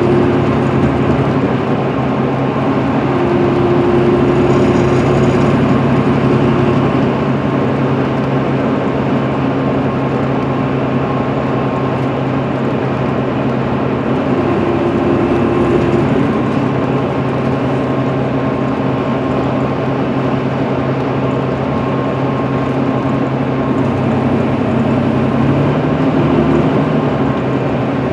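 Interior cabin noise of an MCI D4500CL coach cruising at highway speed: its Cummins ISM diesel engine runs with a steady drone under a constant rush of tyre and road noise.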